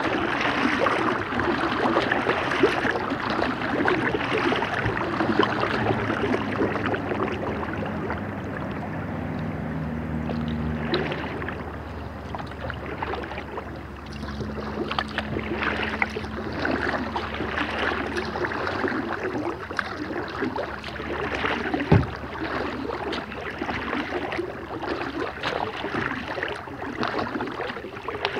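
Kayak paddle strokes on calm river water: the blades dip and drip and splash in an uneven patter. A low steady hum comes and goes in the middle, and a single sharp knock sounds about 22 seconds in.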